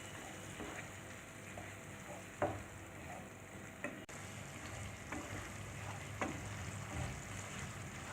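A masala of onions, spices and yogurt sizzling gently in oil in a pan as it is sautéed and stirred. A few short clicks of the spatula against the pan come now and then, the loudest about two and a half seconds in.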